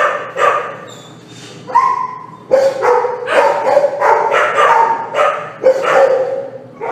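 Dog barking repeatedly: drawn-out barks with a clear pitch, a few spaced out and then several in quick succession about halfway through.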